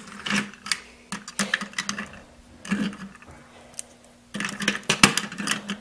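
Plastic toy handling: a small plastic figurine being fitted into a plastic toy truck's cab, giving irregular light clicks and taps that come thicker near the end.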